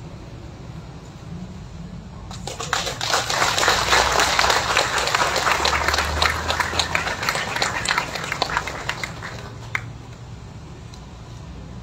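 A crowd applauding: a dense patter of many hands clapping that starts about two seconds in, swells, then thins out and stops about ten seconds in.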